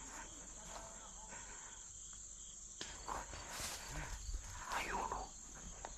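Steady high-pitched chorus of crickets. From about halfway through it is joined by irregular rustling steps and faint distant voices.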